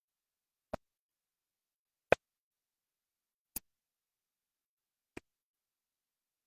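Four sharp clicks about a second and a half apart, the second the loudest, with dead silence between them.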